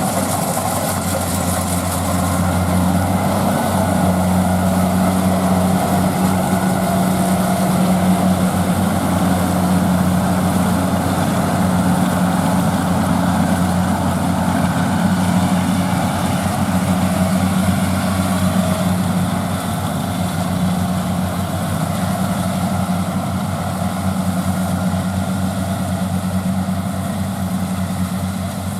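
Diesel engine of a rice combine harvester running steadily under load, a low even drone that eases slightly about two-thirds of the way through.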